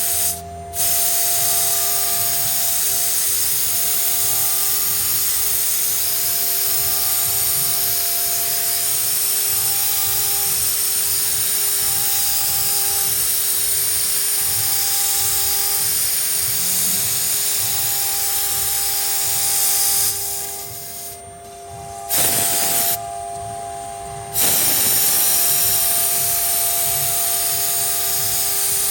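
CNC router spindle running and cutting: a steady high hiss with a constant whine. It drops off briefly just after the start and again twice about three-quarters of the way through.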